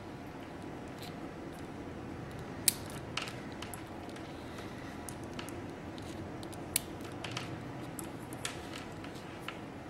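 Small plastic connector and wires being handled, with a few sharp clicks as crimped terminals are seated and lock into the Delphi MAF sensor connector housing; the loudest clicks come about a quarter of the way in and again about two-thirds in. A steady faint hum underlies it.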